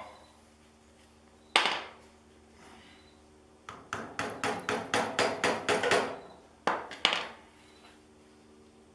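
Metal pick knocking and clicking against the metal of a tiller's tine-shaft oil seal as it is pried out of the gearbox housing. There is one sharp knock, then a quick run of about a dozen taps at some five a second, then two more.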